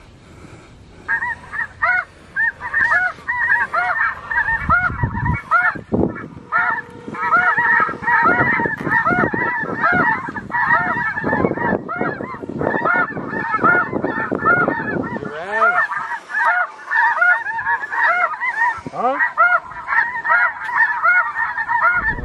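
Electronic snow goose caller playing a recorded flock of snow geese: many overlapping high yelping goose calls, starting suddenly about a second in and going on without a break.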